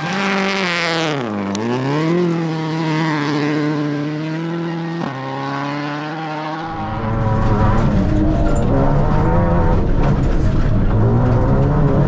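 Rally car engine revving, its pitch dipping and climbing back in the first two seconds and then holding steady. About six and a half seconds in, the sound turns louder and rougher with a heavy rumble.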